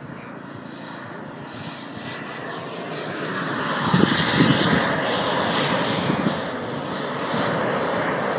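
Radio-controlled model jet's small turbine engine making a fast low pass: a rushing jet sound builds to its loudest about four seconds in as it goes by, then stays strong as it flies off. A thin high whine runs over it.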